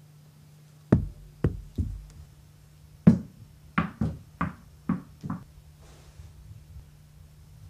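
About nine sharp drum hits in two groups, three close together near the start and six evenly spaced a couple of seconds later, each fading quickly, over a steady low hum.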